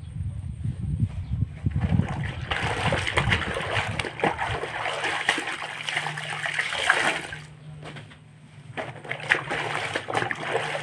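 Water splashing and sloshing in a basin as clothes are washed and rinsed by hand, in an irregular run of small splashes. There is a short lull about three-quarters of the way through.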